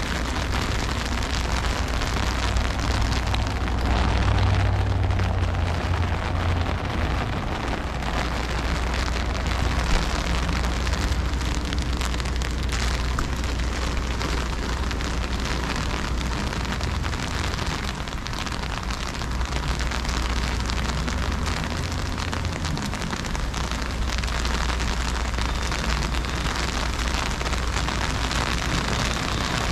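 Heavy freezing rain falling, a steady dense hiss of drops hitting the ground and surfaces, over a low rumble that swells about four to seven seconds in.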